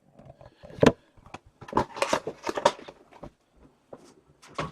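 Hockey-card packaging being handled and opened: irregular crinkling, rustling and sharp clicks, with the loudest snap about a second in.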